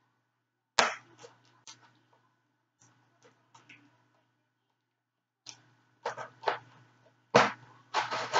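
Hands handling plastic toy parts and packaging: one sharp click about a second in, a few small scattered clicks, then a busier run of clicking and rustling in the last two seconds.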